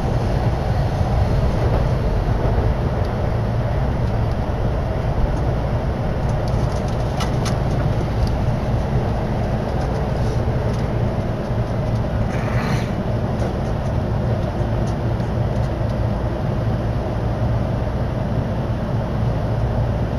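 Keihin-Tohoku Line commuter train heard from inside the carriage: a steady rumble of running noise as it pulls into the station platform, with a short hiss about twelve seconds in.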